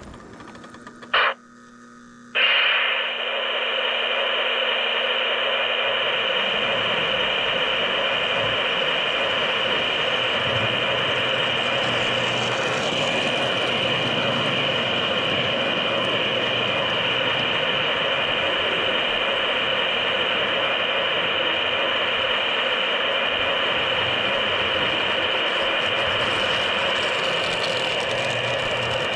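O gauge model train running on a three-rail track, a steady mechanical running noise that starts abruptly about two seconds in, after a brief sound about a second in.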